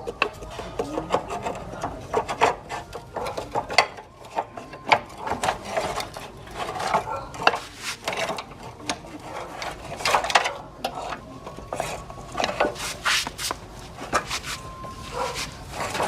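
Hand scraping and rubbing on a workpiece: many irregular strokes mixed with small clicks and knocks.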